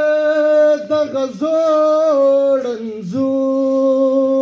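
Pashto tarannum: a man singing unaccompanied into a microphone, holding long, steady high notes. The note steps up and back down in the middle, breaks briefly about three seconds in, then one long note is held through the end.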